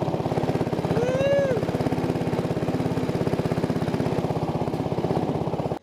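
Small gas engine on a canoe dredge rig running steadily with an even, rapid pulsing. About a second in, a brief call sounds over it, rising and then falling in pitch.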